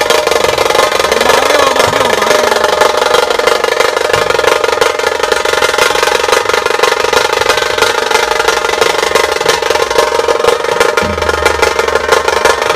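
Music track of fast, continuous drumming, like a snare drum roll, over a steady held tone.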